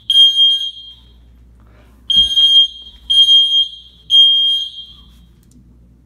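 Dormitory fire alarm sounding its evacuation signal: loud, high-pitched beeps, each about half a second long, in groups of three with a longer pause between groups, the temporal-three pattern.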